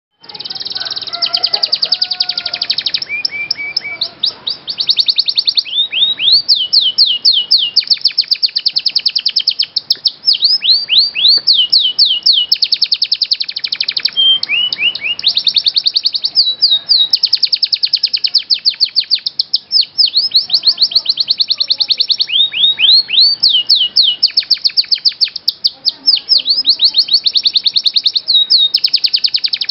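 Domestic canary singing a long, almost unbroken song of fast trills and rolls of rapidly repeated high notes, mixed with quick rising and falling sweeps.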